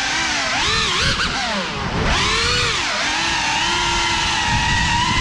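Brushless motors and ducted propellers of a Geprc Cinelog 35 cinewhoop drone whining in flight, the pitch rising and falling with throttle. It drops briefly about two seconds in, then climbs again and holds steadier.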